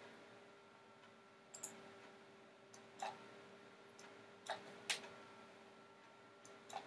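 Computer mouse clicking: about eight short, sharp clicks, mostly in quick pairs spaced a second or two apart, over faint room tone with a steady low hum.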